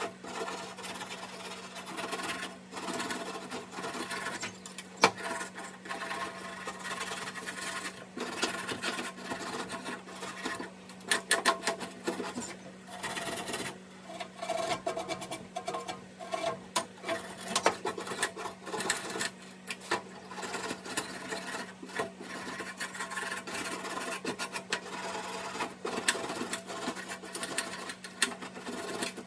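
A small stiff brush scrubbing the latches and steel case of a vintage Kennedy machinist's tool box in quick back-and-forth strokes, cleaning off grime. It makes a dense scratchy rasping that pauses briefly and starts again, over a low steady hum.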